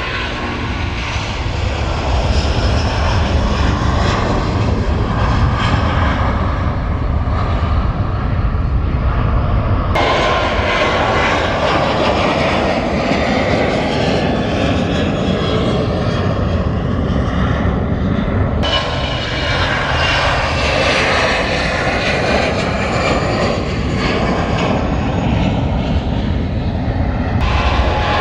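Jet airliners taking off one after another: loud, steady engine noise with gliding whine tones as each aircraft passes. The sound changes abruptly between takeoffs about ten, eighteen and twenty-seven seconds in.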